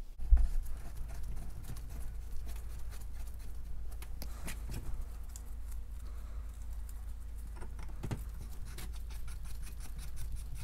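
Light clicks, taps and scrapes of small metal parts being handled and threaded into a cast brake master cylinder on a metal workbench, with one sharper knock just after the start, over a low steady hum.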